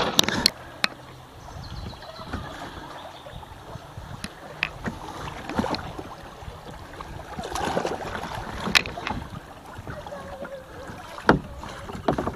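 Kayak being paddled down a riffly river: the paddle blades dip and splash now and then over the steady rush of water past the plastic hull, with a few sharp clicks.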